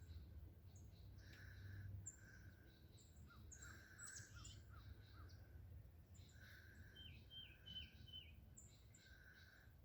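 Faint calls and song from several wild birds: quick runs of short high notes, thin whistles and a few longer hoarse calls, over a low steady background rumble.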